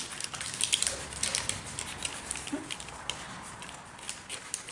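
Scattered light clicks, taps and rustles of hand work on model airplane parts at a workbench, irregular and overlapping.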